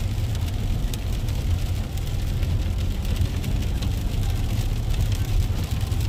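Steady low rumble of road and engine noise heard inside a moving car's cabin while driving.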